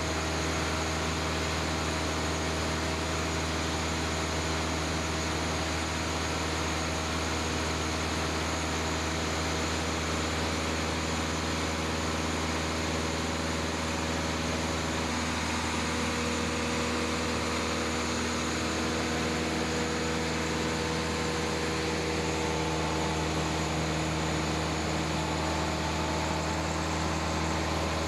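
Cessna single-engine piston airplane's engine and propeller droning steadily in cruise, heard from inside the cabin.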